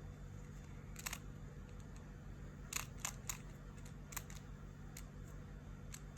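Rubik's cube layers being turned by hand: short plastic clicks, one about a second in, a quick run of three near the middle, then a few spaced singles, over a low steady hum.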